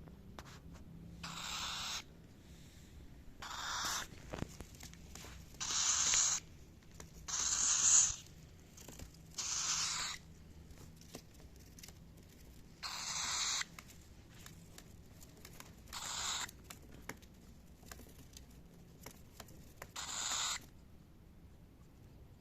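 Cockatiel giving a series of eight short, harsh, raspy calls with no clear pitch, each under a second long and spaced a couple of seconds apart.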